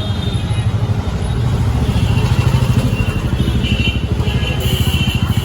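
A motorcycle engine running close by with a fast, throbbing beat, loudest a couple of seconds in, over general street traffic noise.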